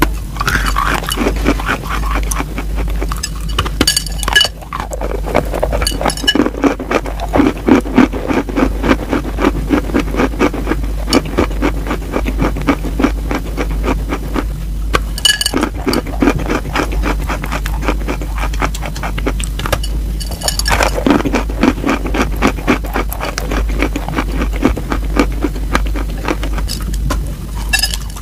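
Close-miked crunching as a person bites and chews a slab of chalk: a steady, dense run of gritty crunches with several sharper bite snaps along the way.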